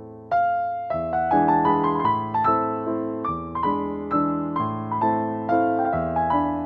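Background piano music: a gentle melody of single notes and chords, each struck and fading, a few per second, with a louder chord entering about a third of a second in.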